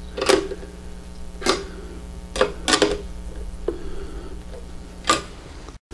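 About half a dozen sharp, irregularly spaced metallic clicks and taps as the nuts on the U-bolts clamping an analyzer mounting bracket to a metal handrail are tightened down with hand tools. A steady low hum runs underneath.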